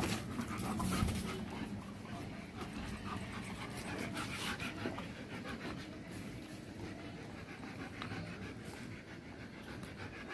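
German Shepherd dogs panting, with scattered light knocks and a sharper knock right at the start.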